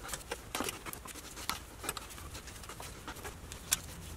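Faint scattered clicks and scrapes of a hooked seal puller picking at the transfer case output shaft seal, working it loose piece by piece.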